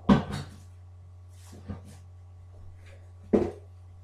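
Handling noises: two sharp knocks about three seconds apart, with softer rustling between, as plastic wax-tart clamshell packaging is handled and set down on a wooden desk. A steady low hum runs underneath.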